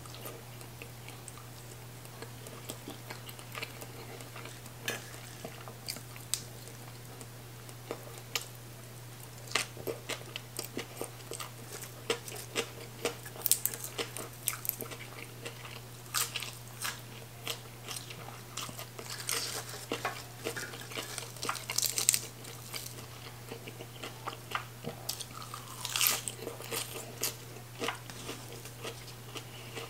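Person eating close to the microphone: irregular crisp bites and crunches with chewing, from fried sour fish, papaya salad and fresh raw greens eaten by hand, over a steady low hum.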